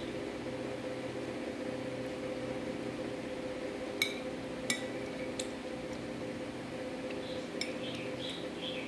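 Metal spoon clinking against a ceramic bowl of liquid dessert, two sharp clinks about four seconds in, with fainter taps later, over a steady low hum. Birds chirp faintly near the end.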